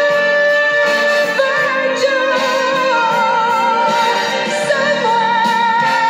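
A song with a sung voice holding long notes over its accompaniment, the notes wavering with vibrato from about two seconds in.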